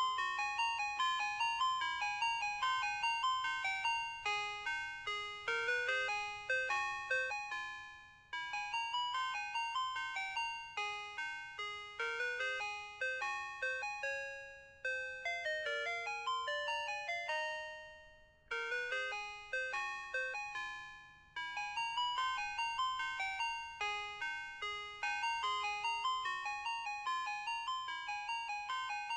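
Ice cream truck jingle: a melody in bright chime-like notes, each struck and then fading, with short pauses between phrases.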